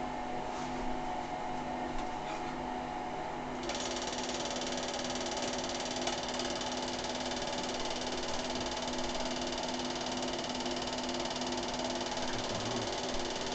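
A small machine running steadily, with a fast mechanical clatter over a low hum; a brighter hiss comes in suddenly about four seconds in.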